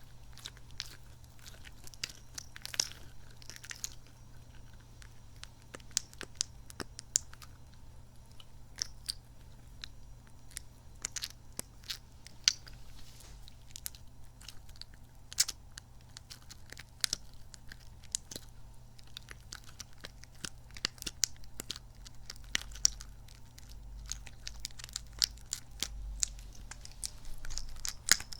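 Sticky, squishy kidney-bean toy squeezed and pulled close to the microphone, giving sticky squelching with many irregular sharp little clicks and crackles.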